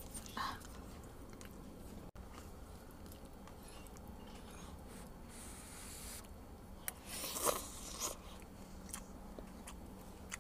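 Faint close-up sounds of a person eating instant noodles: chewing and small clicks from the fork and cup, with a louder noisy burst about seven seconds in.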